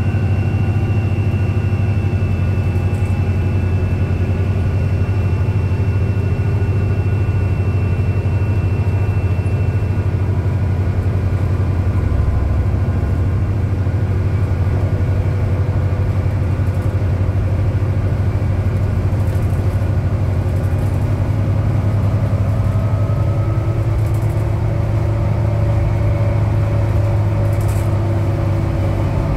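Cabin noise of a 2010 New Flyer DE60LF articulated hybrid bus under way, with its Cummins ISL diesel. A strong, steady low rumble runs throughout. Several thin, high whining tones drift slowly in pitch, typical of the bus's Allison hybrid drive.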